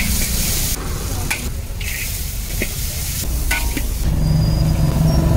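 Oil and vegetables sizzling in a large metal wok as a metal spatula stirs and scrapes, with sharp clanks of the spatula against the pan. A low rumble runs underneath, and a steady hum grows louder over the last second or so.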